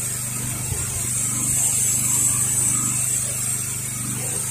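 Pressure-washing rig running steadily: a motor hum under the hiss of a spray stream thrown up onto house siding.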